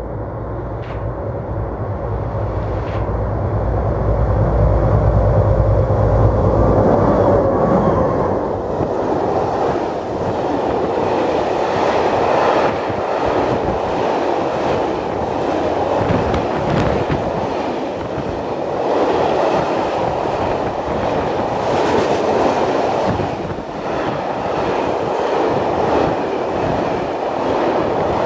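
Czech class 742 diesel locomotives approach and pass with their engines running: a low, steady engine drone builds to its loudest about six seconds in. From about eight seconds in, a long train of hopper wagons rolls past with continuous wheel-on-rail rumble and clatter.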